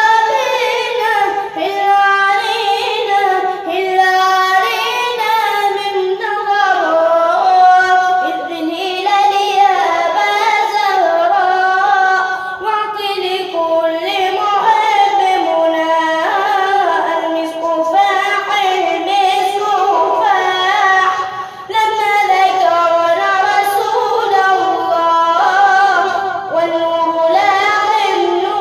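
A high solo voice singing an Islamic religious nashid in praise of the Prophet, in long, ornamented lines whose pitch bends and wavers from note to note, with a short breath about three quarters of the way in.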